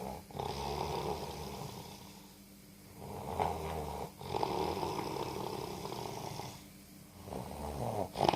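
Snoring: long, noisy breaths that repeat with short quieter pauses between them, about one breath cycle every three to four seconds. A sharp click comes near the end.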